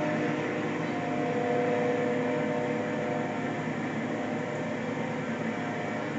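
Train cars rolling past over a street crossing: a steady rumble and rattle with a few faint drawn-out tones.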